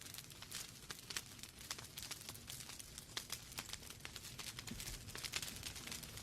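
Wood fire burning in a fireplace: logs crackling and popping, many small irregular snaps over a faint hiss.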